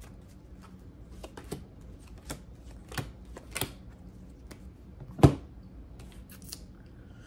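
Tarot cards being shuffled and drawn by hand: scattered light clicks and snaps of the cards, with one louder knock a little past five seconds in.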